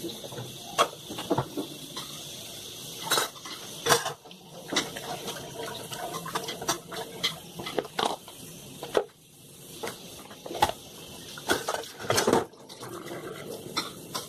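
Dishes being washed at a kitchen sink: a metal pot, lids and plastic bowls clattering and knocking against each other and the sink in irregular sharp knocks, over the steady hiss of running tap water.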